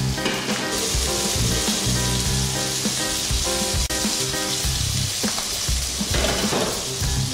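Mango strips sizzling in hot sesame oil in a frying pan as the pan is tossed; the sizzle grows louder about a second in. Background music plays underneath.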